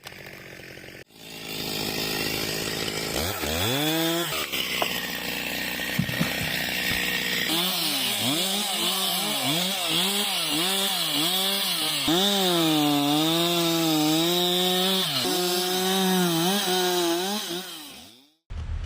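Chainsaw revving up about three seconds in, then cutting wood, its engine note dipping under load and recovering again and again as the chain bites. It stops suddenly near the end.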